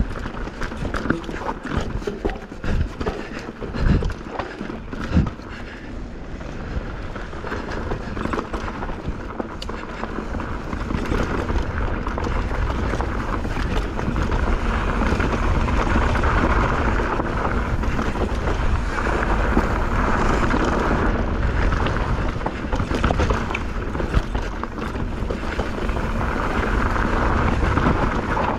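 Mountain bike rattling over rocks, with sharp knocks in the first few seconds, then a steady rush of wind on the microphone and tyre noise that grows louder as the bike picks up speed downhill.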